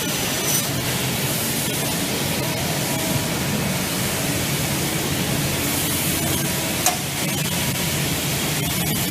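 Steady rushing hiss from a running double-head automatic aluminium profile cutting machine, even and unbroken.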